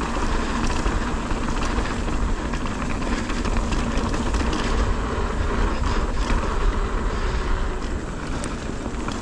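Mountain bike riding fast down a dirt trail: tyres rolling over dirt and the bike rattling with many small clicks over bumps, under a steady low wind rumble on the camera microphone.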